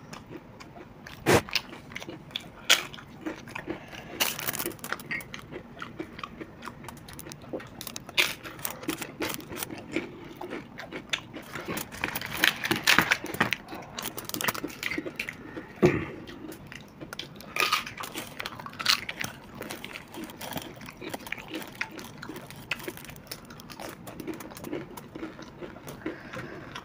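Crisp papad being broken by hand and crunched and chewed in the mouth: many sharp, irregular crackles.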